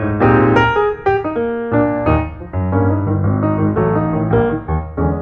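Piano music: chords and melody notes struck one after another and left to ring.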